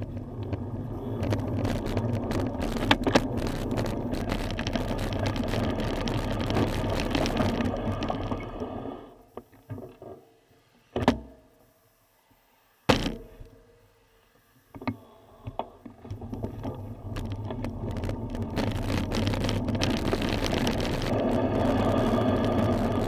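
Wind and road rumble on a bicycle-mounted camera's microphone while riding. The noise falls away to quiet for several seconds in the middle, broken by two sharp clicks, then builds again near the end.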